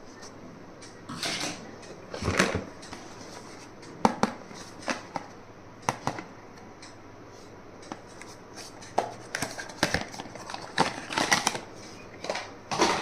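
Irregular clicks, taps and short rustles of stationery items and their packaging being handled.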